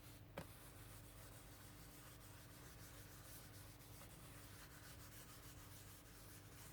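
Near silence: room tone with a faint steady hum and a single small tick about half a second in.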